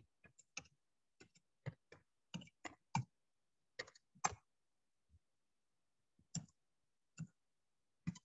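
Computer keyboard being typed on, faint separate key clicks at an irregular pace with short pauses between runs of keystrokes.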